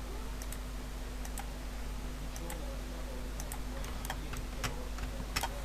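About eight faint, irregular clicks from working a computer's mouse or keys, over a steady low electrical hum.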